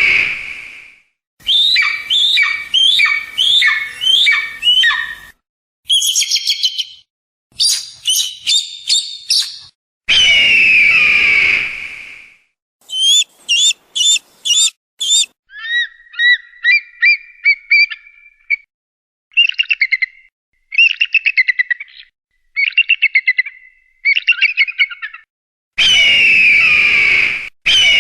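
Eagle calls in a string of separately cut recordings with silent gaps. A long, harsh scream that falls in pitch comes three times: at the start, about ten seconds in, and near the end. Between the screams are runs of short, high chirping and chattering notes in quick series.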